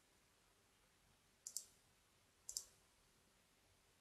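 Two computer mouse clicks about a second apart, each a quick double tick of press and release, over near silence.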